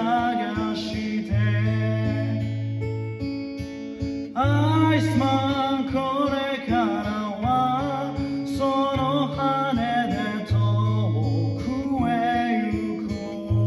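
A man singing to his own strummed acoustic-electric guitar, a Martin, the voice coming in strongly about four seconds in over steady chords.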